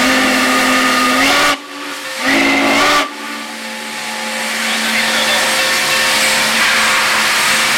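Steam whistle of Union Pacific Challenger locomotive 3985 blowing a long blast and then a short one, each cutting off sharply, followed by steady hissing steam that builds back up.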